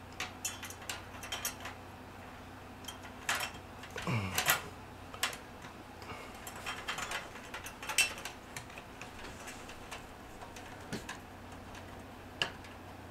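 Scattered light clicks and taps of hands and a screwdriver working a GPU support bracket into place under a graphics card inside a PC case. A cluster of louder knocks with a short scrape comes about four seconds in, with single sharper clicks near eight and twelve seconds.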